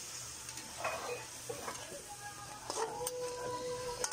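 A metal spatula knocks against the pan a few times, the sharpest strikes about a second in and near the end. Under them, a steady high whining tone holds for about a second near the end.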